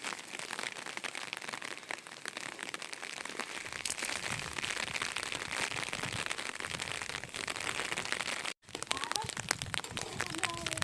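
Rain falling, a steady dense patter of drops, cut off briefly about eight and a half seconds in before it resumes.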